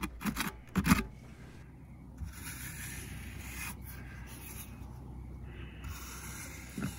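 Broad steel taping knife scraping and smoothing wet mortar mix on a board, in long strokes of about two seconds each.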